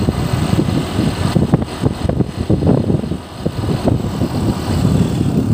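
Riding on a motorcycle: wind buffeting the microphone over the motorcycle's engine and road noise, with a brief lull a little past three seconds.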